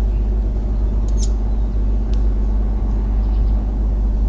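Steady low rumble with a faint, even hum over it; a brief faint click about a second in.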